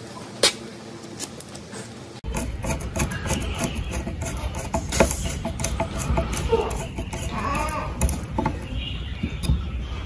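Sharp metal clicks and taps as a table fan motor is reassembled, a screwdriver turning screws into the aluminium end housing. About two seconds in a low steady rumble starts under the clicks.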